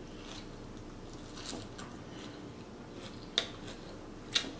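Close-miked chewing of a mouthful of Caesar salad lettuce, with soft wet mouth sounds and a few sharp smacks or clicks, the loudest about three and a half seconds in and just before the end.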